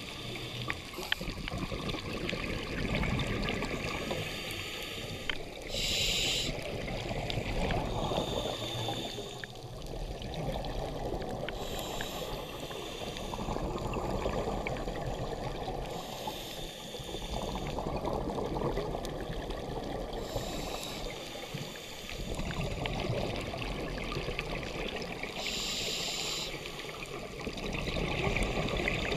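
A scuba diver breathing through a regulator, heard underwater: swells of bubbling exhaust alternate with short hisses, recurring every few seconds.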